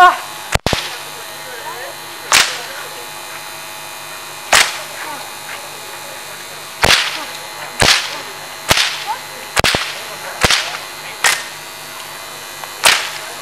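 Whips cracking in a staged scourging: about a dozen sharp cracks at irregular intervals of roughly a second, a couple of them doubled, over a low steady hum.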